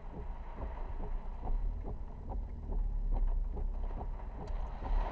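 Typhoon wind and rain against a car, as picked up by its dashboard camera: a steady low rumble with many quick taps, several a second.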